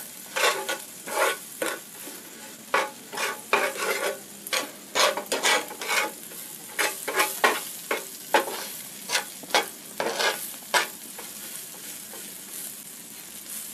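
Crickets frying in margarine on a flat griddle pan, sizzling steadily, while a wooden spatula stirs and scrapes them across the pan in irregular strokes, about one or two a second, that thin out near the end.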